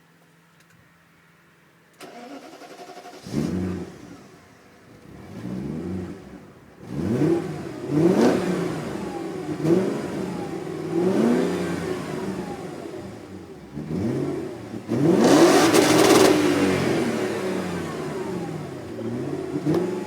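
BMW 730i E32 3.0-litre V8 with its stock exhaust, starting up about 3 seconds in and then being revved repeatedly in short rising-and-falling blips that drop back toward idle. The longest and loudest rev comes about two-thirds of the way through.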